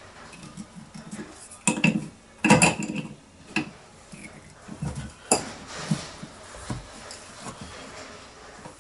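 Irregular clattering and knocking of plumbing fittings and tools being handled under a wash basin as the pipe joints and sink waste are made up, loudest in two clusters about two seconds in, with a sharp click a little past halfway.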